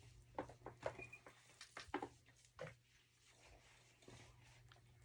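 Near silence: a low steady room hum with a scattering of faint, short clicks and taps.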